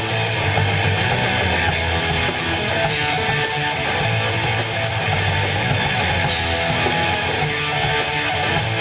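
Rock band playing live, guitar to the fore, loud and unbroken.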